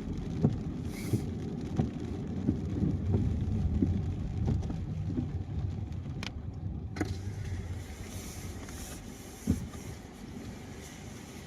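Car driving on a wet highway in rain: a steady low road and tyre rumble with scattered short taps and knocks. The higher hiss drops out briefly just past halfway, and the sound eases off toward the end.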